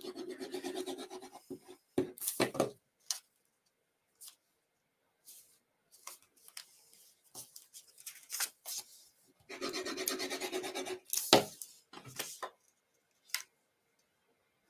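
Sponge tip of a liquid glue bottle rubbed across a paper square, twice for about a second and a half each, the second time about ten seconds in, with light taps and rustles of paper and card being laid down and pressed in between.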